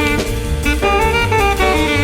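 Jazz recording: a soprano saxophone plays a melody line in held, changing notes over piano and drum kit.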